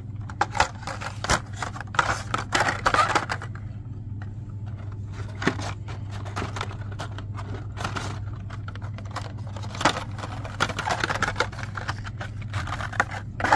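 Blister-carded Hot Wheels cars being handled and hung back on metal store peg hooks: repeated light plastic clicks, rattles and scrapes, busiest in two spells at the start and near the end, over a steady low hum.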